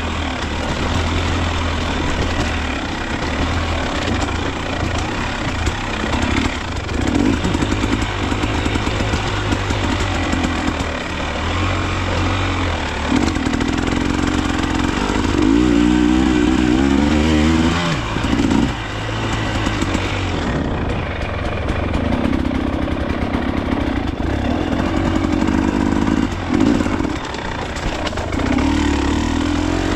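Off-road dirt bike engine revving in repeated surges, its pitch climbing and falling back several times, with a sudden drop about two-thirds of the way through.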